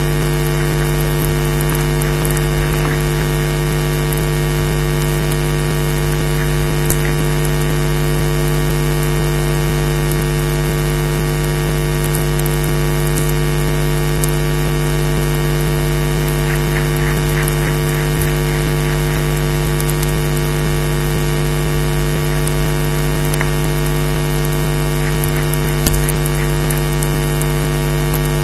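Steady electrical hum with many overtones over a constant hiss, with a few faint clicks.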